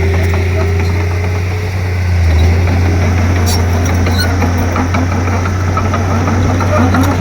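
Komatsu D31P crawler bulldozer's diesel engine running steadily while pushing soil, with a few scattered sharp clanks.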